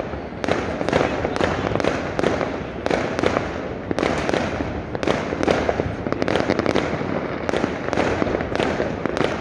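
Many fireworks and firecrackers going off all around, a continuous din of bangs and pops several times a second over a dense rumbling crackle.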